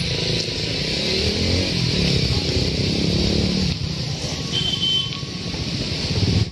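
Steady rumble of a passenger train running away down the track, wheels on the rails, with an even hiss over it. A short high tone sounds about two-thirds of the way in.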